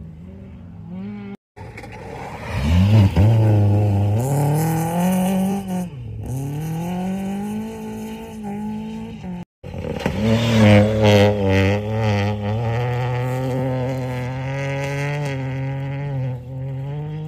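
Rally cars at full speed on a gravel stage, the engines revving up and falling back again and again through gear changes. It is loudest about three seconds in and again from about ten seconds in, with two sudden brief gaps in the sound.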